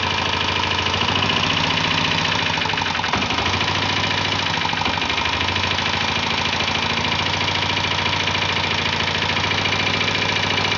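Diesel engine of a Royal Enfield Bullet diesel motorcycle idling steadily, its firing pulses fast and even.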